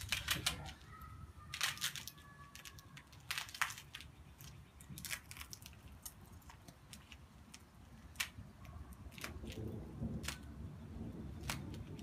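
Duct tape being cut and peeled off by hand: a string of short crinkles, snips and rips at uneven intervals.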